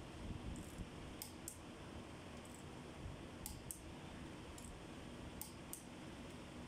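Light, sharp metal clicks of a hand tool working on the connecting-rod cap bolts of a Cummins QST30 engine, about nine spaced irregularly over several seconds, over a faint steady hum.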